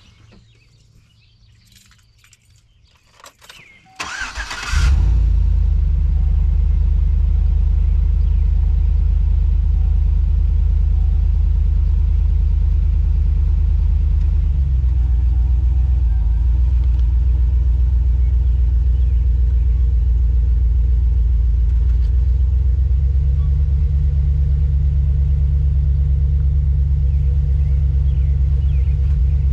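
A pickup truck's engine starts about four seconds in, then runs at a steady idle; its pitch shifts slightly about ten seconds after starting.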